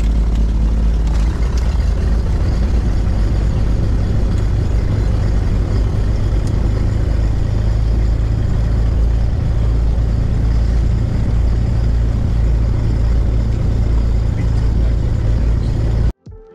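Cessna 337 Skymaster's front and rear piston engines running steadily, heard from inside the cabin. The drone cuts off abruptly near the end.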